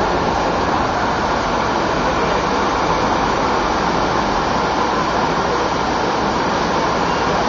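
Steady roar of ocean surf, an even hiss with no separate wave breaks.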